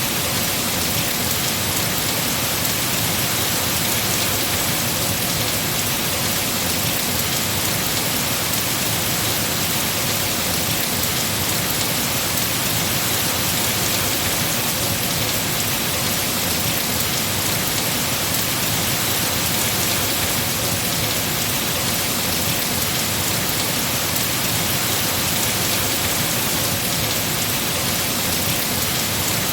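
Heavy rain falling on trees, a steady, even hiss.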